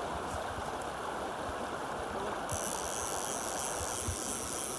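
Small woodland stream running over rocks: a steady rush of water, with a brighter hiss coming in about halfway through.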